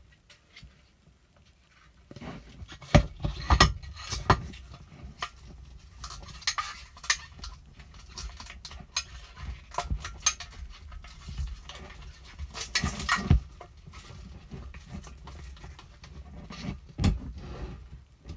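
Plastic petri dishes of agar and a scalpel being handled: irregular clicks, taps and knocks, the loudest about three to four seconds in, around thirteen seconds and near the end.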